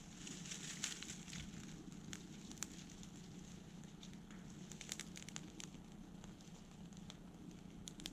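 Faint, irregular crackling and clicking, denser in the first second or so, over a low steady hum.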